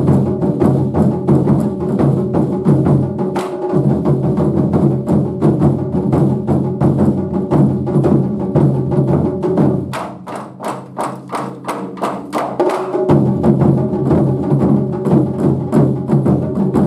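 Japanese taiko drum ensemble playing a fast, dense rhythm. About ten seconds in, the big drums drop out for about three seconds and only sharp clacking strokes, several a second, are heard. Then the full drums come back in.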